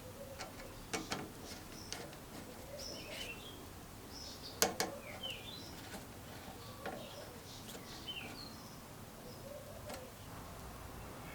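Small birds chirping in short calls, with a few sharp clicks about a second in and a louder pair near the middle.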